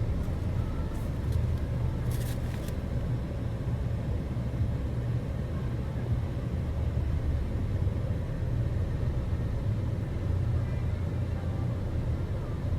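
Steady low rumble of a car's road and engine noise heard from inside the cabin while driving, with a few faint clicks about two seconds in.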